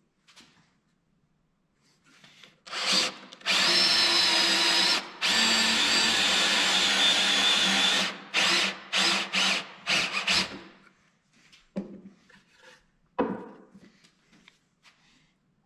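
Cordless drill boring into softwood with a large Forstner-style bit, its motor whining steadily under load for about four and a half seconds. The trigger is then pulsed in a string of short bursts as the counterbore is finished, about ten and a half seconds in, followed by a few faint knocks.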